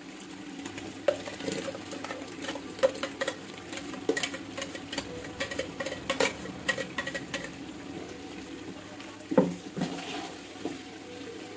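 Ground masala paste being scraped and knocked out of a steel mixer-grinder jar into an aluminium cooking pot. A quick run of metal clinks, taps and scrapes thins out after about seven seconds, with two or three more near the end, over a faint steady hum.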